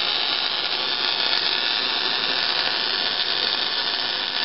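Wire-feed (MIG) welder arc crackling and hissing steadily as a bead is laid.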